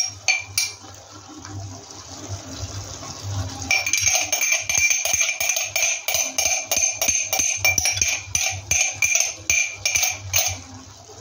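A spoon scraping and tapping inside a jar of thick coconut cream to get it out, a quick run of clinks about three a second in which the jar rings, starting about four seconds in and stopping shortly before the end; a few single clinks right at the start.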